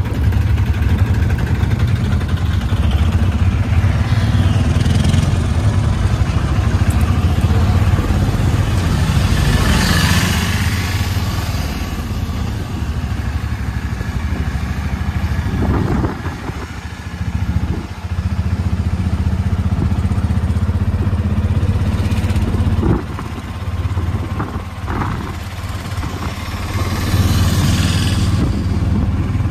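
Auto-rickshaw engine running as it drives along, heard from inside its open passenger cabin. The sound drops briefly about halfway through and again a few seconds later.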